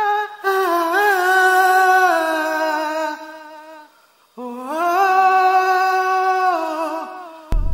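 Background music: a voice humming a wordless melody in long held notes, in two phrases with a brief break near the middle.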